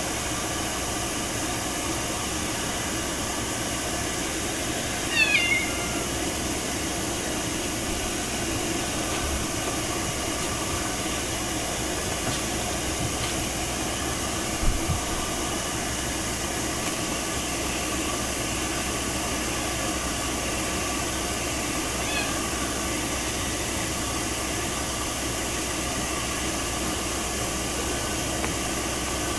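A Ragdoll cat gives a short meow about five seconds in and a faint one about seventeen seconds later, over a steady rushing noise.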